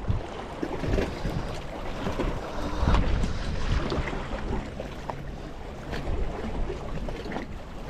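Wind buffeting the microphone outdoors, a rumbling, uneven noise with a few small knocks mixed in.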